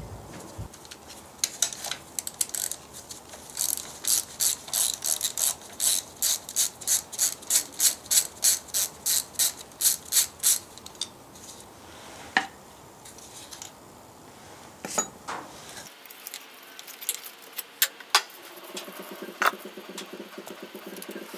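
Socket ratchet wrench clicking in quick, even back-strokes, about three a second, as it spins the nut off a tractor engine's valve cover. The clicking stops about ten seconds in, followed by a few scattered clicks and knocks of the nut and cover being handled.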